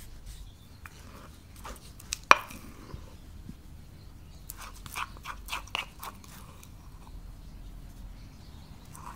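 Kitchen handling sounds at a mixing bowl: a few sharp knocks, the loudest about two seconds in, then a quick run of light clicks between about four and a half and six seconds as a wooden spoon scrapes sourdough starter out of a small ceramic bowl into the flour.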